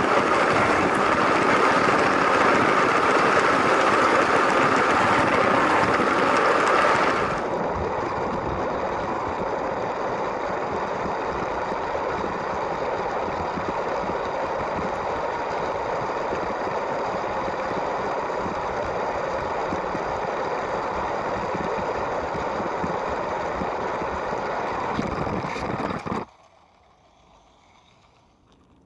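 LEGO train's small electric motor running and its wheels rolling along plastic track, loud and steady. The sound changes character about seven seconds in, then cuts off suddenly near the end, leaving near silence.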